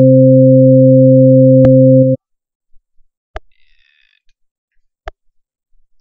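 Steady, plain organ-like synthesizer tone from LMMS's Triple Oscillator, one held pitch with its overtones. It plays loudly for about two seconds and then cuts off suddenly. Partway through comes a click, the pop where the one-bar pattern loops, and a couple of sharp clicks follow after the tone stops.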